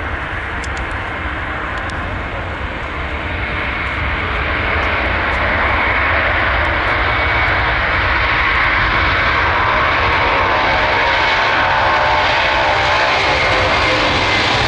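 Antonov An-124-100's four Progress D-18T turbofans at takeoff thrust during the takeoff roll. The sound gets louder about four seconds in and then holds steady, with a whine that falls slightly in pitch near the end.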